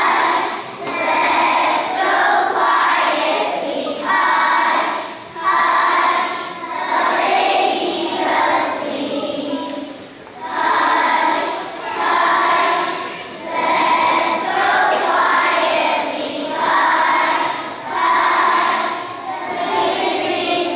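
A large choir of young children singing together, in phrases a second or two long with short breaths between them.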